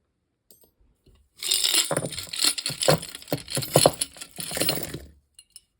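A pile of small metal jewelry pieces clinking and jangling as it is rummaged through. After a short quiet spell there are about three and a half seconds of dense rattling with many small sharp clinks, which stops about five seconds in.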